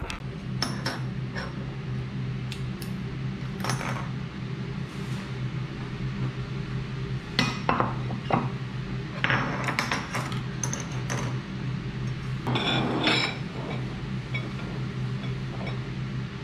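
Scattered light clinks and knocks of small hard objects being handled, busiest in the middle stretch, over a steady low hum.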